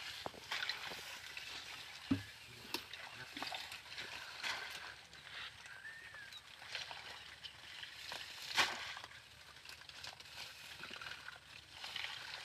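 Water sloshing and splashing in irregular bursts, with one sharper splash a little past the middle.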